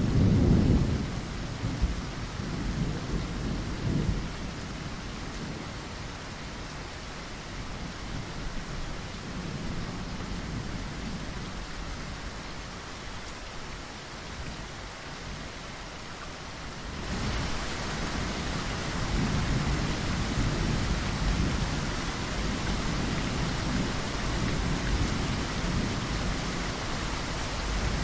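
Steady rain in a thunderstorm, with thunder rumbling: a loud roll dies away in the first second, lighter rumbles follow, and more rumbling comes in the second half. About 17 seconds in, the rain suddenly grows louder and heavier.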